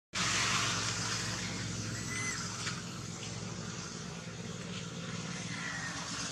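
A steady low engine hum under a constant hiss of outdoor noise.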